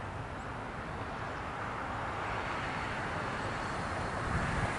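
Road traffic: a car's tyre noise slowly growing louder as it approaches, over a low rumble of wind on the microphone.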